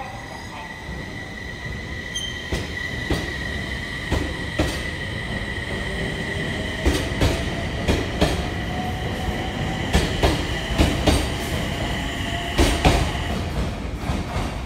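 Electric commuter train, with Sendai Airport Railway SAT721 series cars at its rear, pulling out of the station. It gives a steady high electric whine, with a lower tone that slowly rises in pitch as it gathers speed. The wheels clack over the rail joints in pairs, coming more often, and the whine fades near the end as the train moves off.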